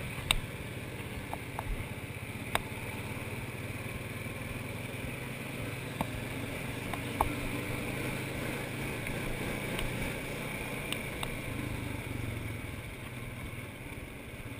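Honda Foreman 500 ATV's single-cylinder four-stroke engine running steadily under way, heard from the rider's seat, with a few sharp knocks scattered through it.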